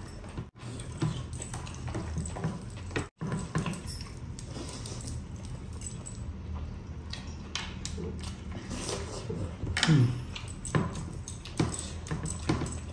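Close-miked eating sounds: chewing and lip smacking as rice and curry are eaten by hand, with the squish of fingers mixing rice on the plate and light clinks from metal rings and bracelets. The sound drops out to silence twice, briefly, about half a second in and about three seconds in.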